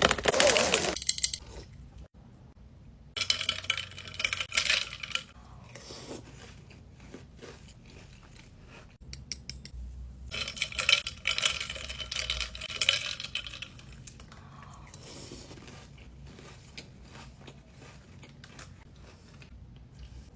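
Close-miked crinkling and crunching from handling and eating snacks, in three loud bursts: at the very start, about three to five seconds in, and from about ten to fourteen seconds in, with soft clicks and rustles between.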